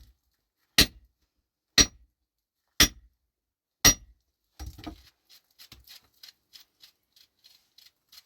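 Pickaxe striking rock five times, about a second apart, with each blow sharp and clinking. After that come lighter, quicker clicks and scrapes.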